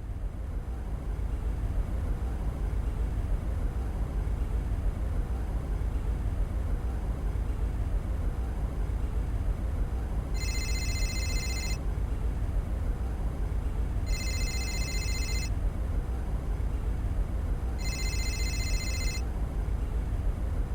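Opening of an Amiga demo's soundtrack: a steady low rumbling noise, with three bursts of high, bell-like electronic tones, each a little over a second long and spaced a few seconds apart, over it in the second half.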